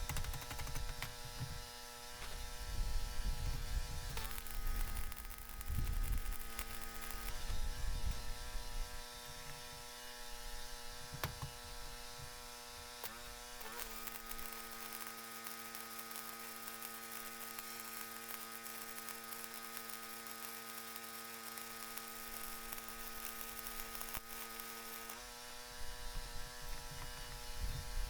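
Stick welder running an E7018 rod: a steady electric hum that steps in pitch a few times, over a faint hiss of the arc.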